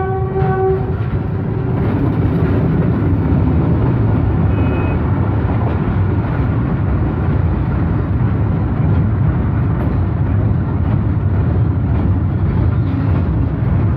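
A diesel train's horn, sounding from before, ends under a second in. It gives way to the steady, loud rumble of freight wagons rolling past, heard from inside a vehicle behind its windshield.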